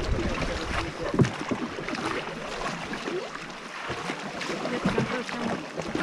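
Paddles dipping and splashing in river water as a rowboat is paddled, irregular water sounds with no steady rhythm.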